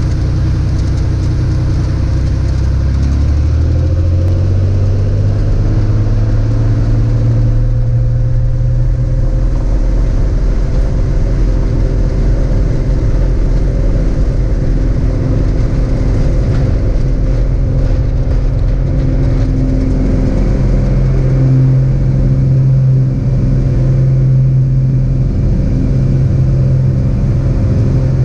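Cessna 206's six-cylinder piston engine and propeller at takeoff power, heard from inside the cabin: the engine note rises over the first eight or nine seconds as it comes up to full power, then holds steady and loud through the takeoff roll.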